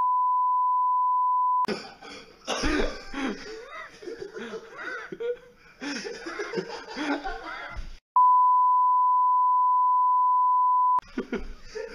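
Steady high censor bleep tone that cuts off about a second and a half in, then several seconds of people coughing and laughing, then a second long bleep of about three seconds starting near 8 seconds in.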